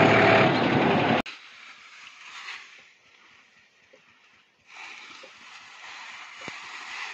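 Tractor engine running loud under way, cut off suddenly about a second in. Then a much quieter hiss with faint rustles and a few light snaps as dry sorghum stalks are gathered by hand.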